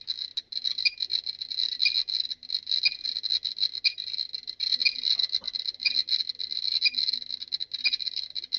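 GMC-300E Geiger counter clicking rapidly and without a break, a few thousand counts a minute, as it reads a hot radioactive test sample.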